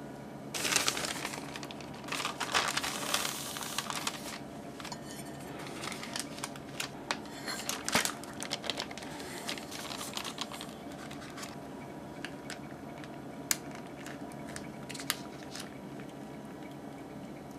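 Plastic liner and parchment paper crinkling and rustling as a cake in a metal loaf tin is flipped over, followed by a run of light clicks and taps from the tin being handled, and two sharp clicks near the end.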